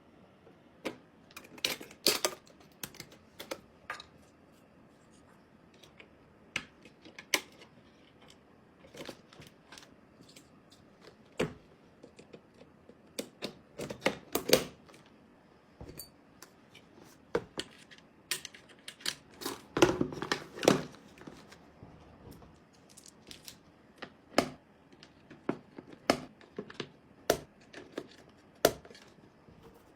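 Computer parts being handled and fitted: irregular sharp clicks and taps with short rustles, busiest about two seconds in, around the middle and about two-thirds through.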